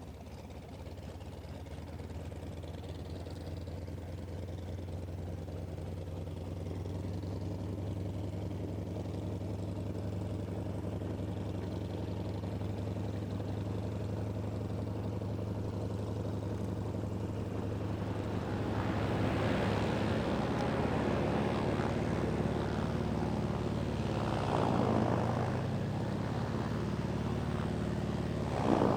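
Vedeneyev M-14P nine-cylinder supercharged radial engine of a Sukhoi Su-29 running with its propeller turning, a steady low throb that grows gradually louder. About two-thirds of the way through it turns coarser and fuller, with two brief surges near the end.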